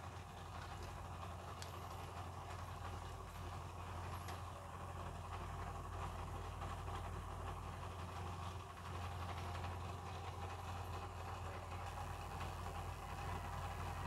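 Steady low mechanical hum with an even background hiss, unchanging throughout.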